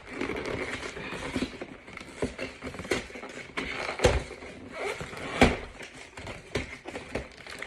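Hands working a cardboard Pokémon card collection box open: irregular rustling and scraping with scattered sharp clicks and knocks, the loudest about four and five and a half seconds in.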